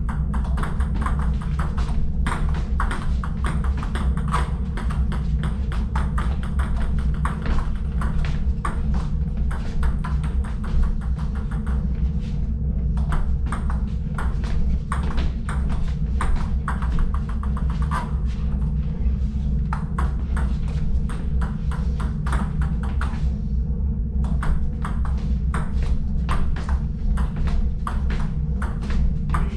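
Table tennis balls clicking rapidly off rubber paddles and a tabletop in fast back-and-forth rallies, with short breaks about halfway through and near the end. A steady low hum runs underneath.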